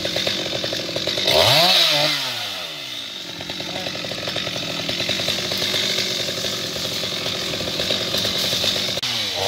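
Chainsaw running, revving up sharply about a second and a half in and falling back to run on at a lower speed, then revving up again near the end, as it cuts broken branches off a fallen tree.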